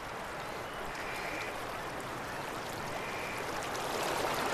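River water rushing and churning, a steady noise that grows gradually louder.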